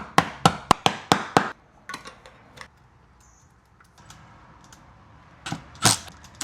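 Door lock hardware being worked by hand: a quick run of about seven sharp clicks and knocks over the first second and a half, then a couple of louder clatters near the end.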